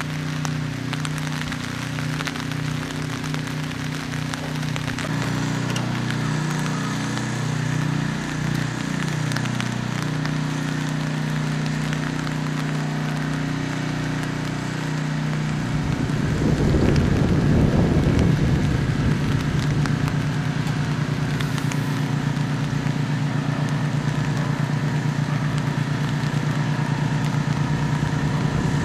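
A steady low engine-like hum under a noisy patter, getting louder and denser with a fast low pulsing about sixteen seconds in.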